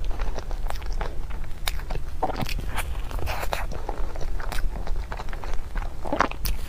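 Close-miked eating of a cream puff: soft bites and wet chewing of choux pastry and whipped cream, with many small irregular mouth clicks, over a steady low hum.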